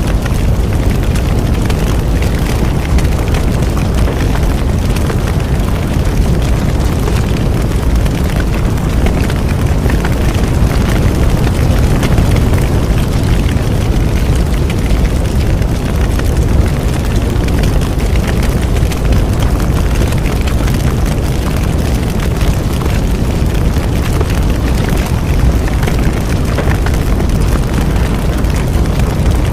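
A bonfire burning with a steady low rumbling roar and a constant scatter of small crackles and pops.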